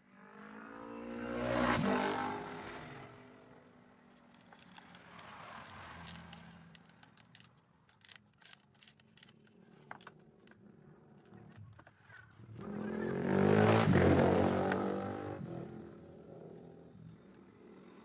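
Two motor vehicles passing by one after the other, each engine swelling up and fading away over a few seconds, the first about two seconds in and the second near fourteen seconds. In between, faint clicks and scrapes of thin bamboo strips being handled.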